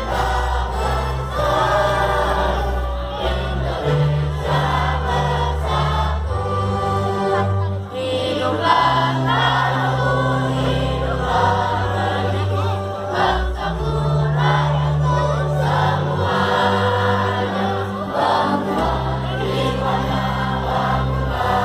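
A choir singing a slow song, with long held low notes under the voices.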